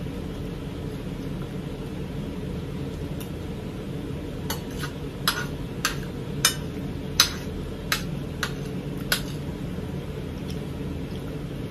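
Metal spoon clinking and scraping on a ceramic plate while eating, with about eight sharp clinks in the middle stretch, over a steady low hum.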